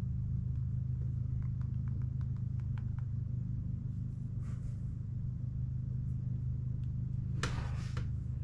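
Steady low background hum, with a few faint small clicks in the first few seconds and a brief rustle about three-quarters of the way through.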